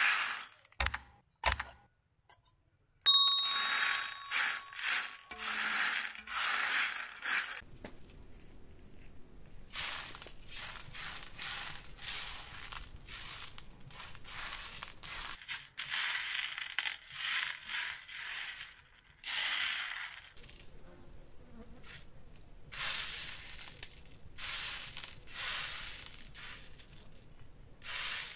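Dried chickpeas and speckled beans rattling on a large metal tray as they are poured and then raked through by hand. About three seconds in they land with a sudden clatter and a brief ring from the tray, followed by repeated short rattling sweeps.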